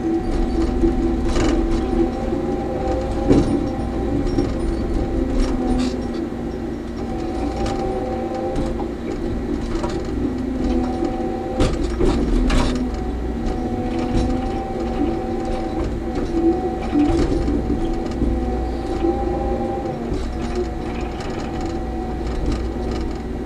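Cat D6K crawler dozer heard from inside its cab, its diesel engine running steadily under load while it rips frozen ground with the rear shank. Track clatter and scattered sharp knocks run through it.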